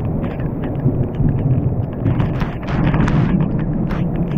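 Heavy rain pelting the camera and rain gear up close: a steady low rumble peppered with many sharp drop hits.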